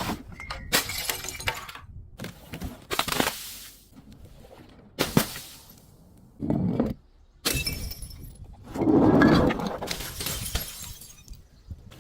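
Glass bottles smashing one after another, about six separate crashes, each trailing off in tinkling shards. The loudest is a longer, deeper crunch about nine seconds in.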